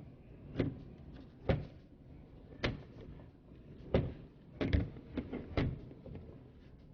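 Small hard parts being handled during reassembly of a roller-probe tire and wheel assembly: about eight sharp clicks and knocks at irregular intervals.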